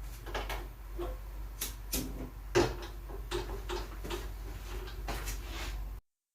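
Kitchen handling sounds: scattered light knocks, taps and clicks of utensils and cookware being moved, with one sharper knock about two and a half seconds in. The sound cuts off suddenly near the end.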